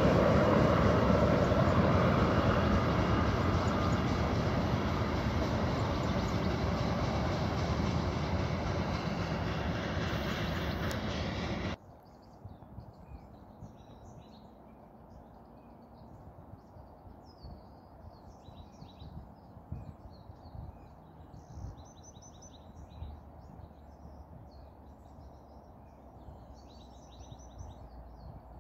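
BNSF freight train rolling away down the track, a dense rumble of wheels and cars that fades steadily and cuts off abruptly about twelve seconds in. After that, quiet with birds chirping.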